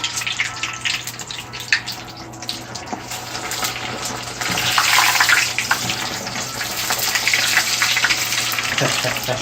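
Breaded chicken wings deep-frying in very hot oil: a steady sizzle with crackling spatter, getting louder about halfway through.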